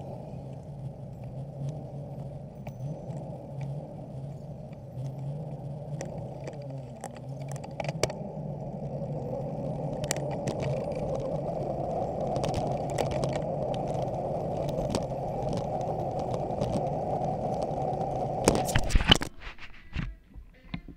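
Riding noise picked up by a handlebar-mounted action camera on a moving bicycle: a steady, muffled rumble of tyres on the road, with frequent small rattles and knocks from bumps. A few louder knocks come shortly before the end, after which it drops much quieter.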